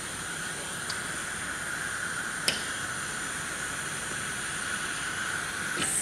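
Siemens (Powers) pneumatic wall thermostat hissing steadily: compressed control air is escaping through a break in its brittle supply tubing. A single sharp click sounds about two and a half seconds in.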